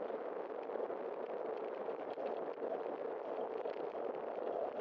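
Steady watery hiss of bicycle tyres rolling on wet asphalt, with road and wind rush on the ride.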